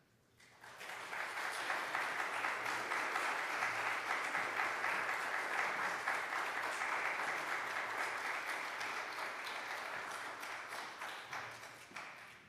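Congregation applauding, starting about half a second in and swelling quickly, then holding steady before tapering off near the end.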